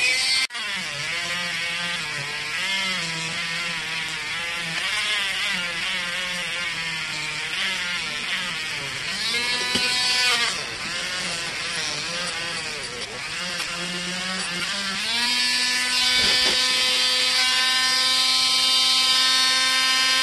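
Small power tool spinning a buffing wheel. Its motor pitch wavers up and down as it works against the metal, then holds steady at a slightly higher pitch for the last few seconds.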